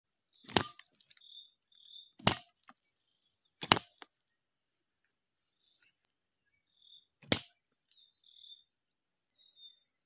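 Steady high-pitched buzz of insects, broken four times by sharp knocks of bamboo pieces as the bamboo bird trap is handled; the knocks are the loudest sounds, the second and third about a second and a half apart.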